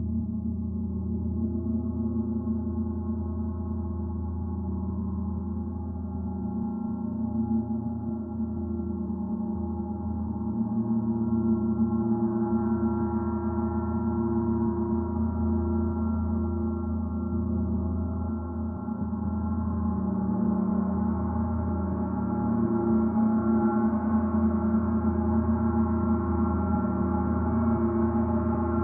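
Oetken 32-inch Water Gong played with a soft felt mallet, its strokes blending into one continuous wash of overlapping tones. The sound slowly grows louder and higher overtones come in as it builds.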